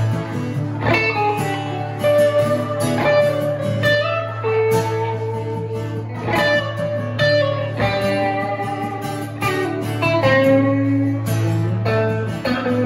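Instrumental blues guitar break: a Stratocaster-style electric guitar plays lead lines with bent notes over a strummed acoustic guitar.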